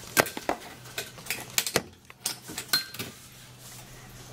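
A handful of light clicks and knocks in the first two seconds, then a quieter stretch with a low steady hum.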